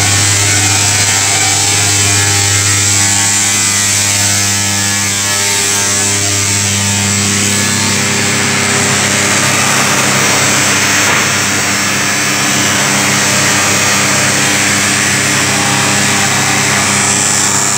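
Sawdust drum-dryer line with heat exchanger running: a loud, steady machine hum of electric motors and fans, with a constant hiss over it.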